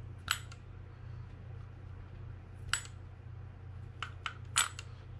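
A few sharp metallic clicks from a Daiwa Sealine 300H conventional fishing reel being worked by hand as its free spool is tested after servicing. There are about five clicks spaced irregularly, three of them close together near the end.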